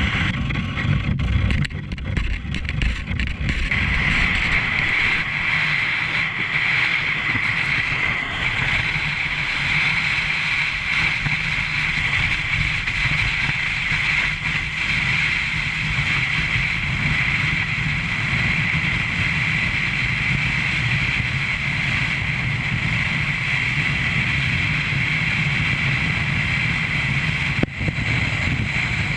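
A sled sliding fast over a snow-covered street: a steady hissing scrape over the snow, with wind rushing over the microphone. The first few seconds are rough and uneven, then the scrape settles into an even hiss.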